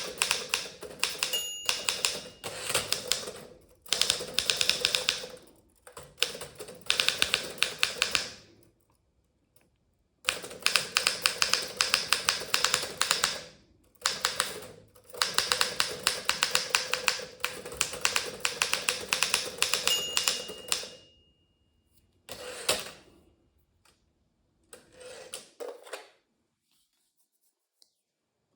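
Fast touch-typing on a Remington Senior Writer (Torpedo 17a) portable typewriter: long runs of rapid keystrokes broken by short pauses, thinning to a few scattered clatters near the end. A short ringing tone, the carriage's margin bell, sounds twice, about a second and a half in and near twenty seconds in.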